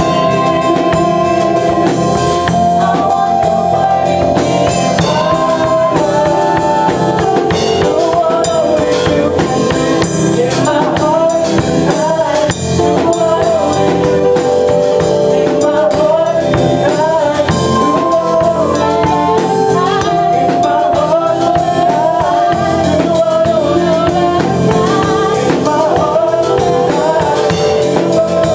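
Worship song with singing over a band, with a drum kit keeping a steady beat and percussion such as tambourine.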